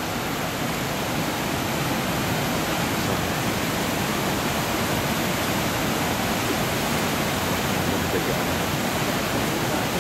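Steady rushing of a wide, low river waterfall, white water pouring over the falls without a break.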